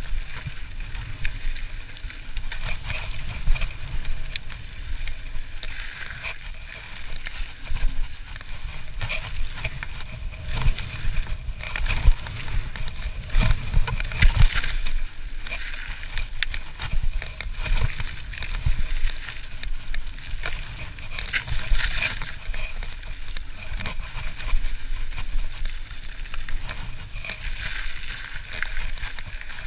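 Trek Slash mountain bike descending a gravel trail at speed: tyres rolling and crunching over loose gravel, with irregular rattles and knocks from the bike over bumps. Wind rumbles on the camera microphone.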